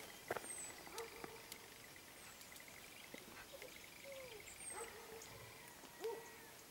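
Faint, distant animal calls: four or five short cries, each rising then falling, scattered over a quiet outdoor background, with a few soft clicks.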